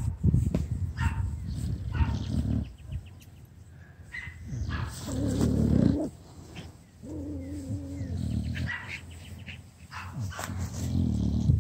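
Bulldog making low, snore-like grunts and snuffles while it is rubbed, in about four bouts, with a drawn-out groan a little past the middle.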